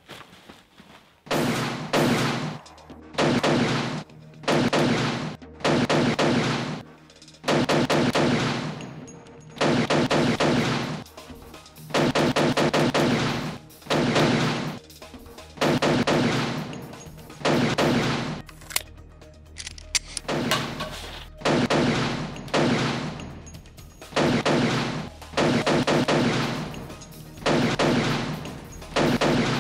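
Bursts of rapid gunfire, each about a second long, coming again about every one to two seconds after the first starts about a second in.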